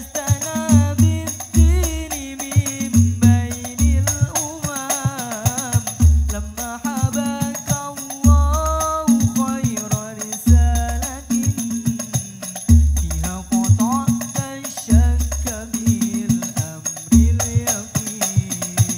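Al-Banjari ensemble performing a sholawat: male voices singing a melismatic melody in unison over hand-played frame drums, with deep bass strokes falling in a steady repeating pattern.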